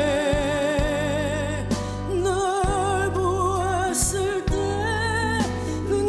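A woman singing a slow Korean ballad live, holding notes with wide vibrato in phrases of a second or two, over a band accompaniment with strings and a steady bass.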